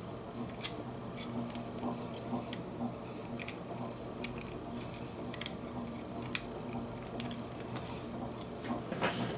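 Lock pick clicking and scraping irregularly inside a Bunker Hill disc padlock as it is picked, small sharp metallic ticks over a low steady hum. There is a louder scrape near the end.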